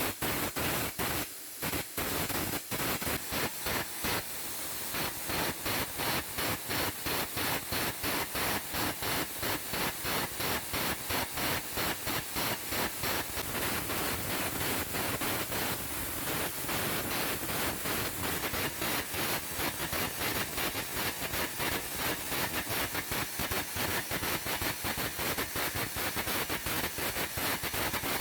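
Air carbon arc gouging: the carbon rod's arc and compressed-air jet making a harsh, rapidly stuttering hiss as the rod burns a groove along the back of a weld joint. It starts at the very beginning, breaks off briefly twice within the first few seconds, then runs on unbroken.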